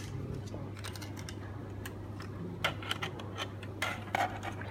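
Small hard-plastic model-kit parts of Bandai Super Mini-Pla Jetman jets clicking and tapping as they are handled and moved on a table: scattered sharp clicks, with small clusters about two and a half seconds in and again near four seconds.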